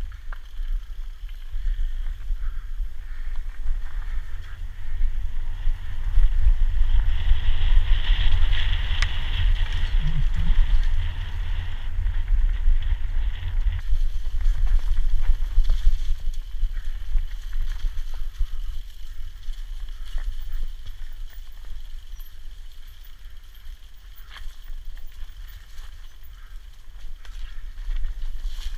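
Wind buffeting a helmet-mounted action camera's microphone during a fast downhill mountain-bike descent, a steady low rumble, over the rolling noise of knobby tyres on gravel and dirt and scattered rattles and clicks from the bike.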